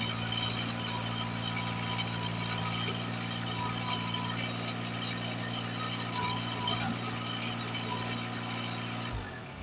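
Compact loader tractor's engine running steadily, then shut off about nine seconds in, its note sinking as it winds down and stops.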